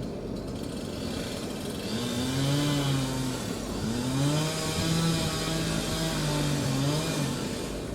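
Gas chainsaw revving up about two seconds in, dipping briefly, then held at high speed for several seconds before easing off near the end, as it cuts through a small, very dead tree.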